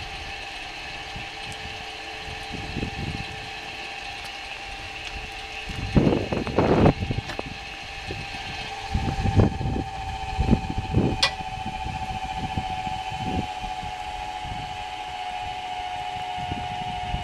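A few dull knocks, then from about halfway through the steady whine of an electric trailer tongue jack's motor raising the trailer tongue, the hitched car lifting with it.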